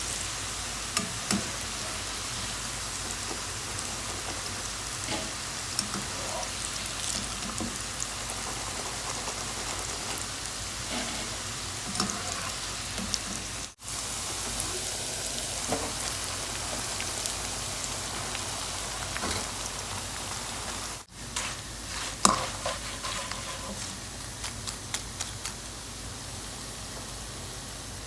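Food frying in hot oil in a pan, a steady sizzle with scattered small crackles and a few light knocks of utensil on pan; it breaks off for a moment twice.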